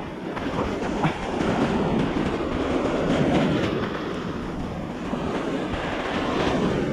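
Steady rush of sea surf washing on a sandy beach, mixed with wind noise, swelling slightly a few seconds in.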